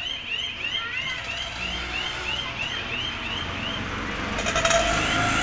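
A bird chirping in a steady series of high, rising-and-falling notes, about three a second, which stop about four seconds in. A louder burst of noise follows near the end.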